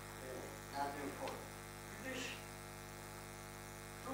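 Steady electrical hum from the room's microphone and sound system, a stack of even tones, with a few faint, soft voice fragments about one and two seconds in.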